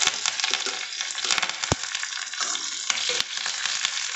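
Sliced onions, curry leaves and green chillies sizzling in hot oil in a stainless-steel kadai as the leaves and chillies go in, a steady hiss with sharp crackles and pops scattered through it.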